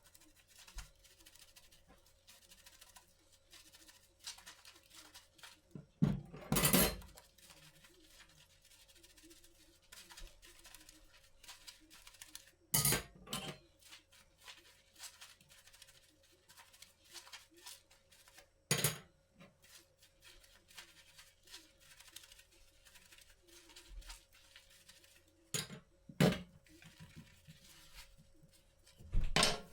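Household objects being handled by hand: many light clicks and scrapes, with louder knocks or clatters about six, thirteen, nineteen and twenty-six seconds in and again near the end. A faint steady hum runs underneath.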